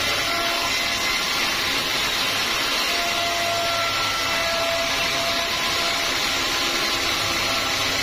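Sawmill band saw blade cutting lengthwise through a teak log: a steady, unbroken hiss of blade in wood with the machine's running noise and faint whining tones that waver slightly in pitch.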